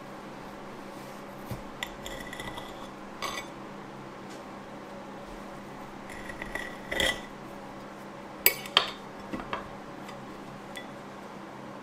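A table knife scraping and clinking against a ceramic plate as it cuts through a glazed doughnut. There are short bursts of scraping, then two sharp clinks about eight and a half seconds in.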